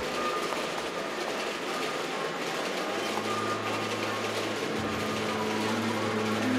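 Steady, machine-like electronic noise texture from the performance soundtrack, with a low held drone note coming in about three seconds in.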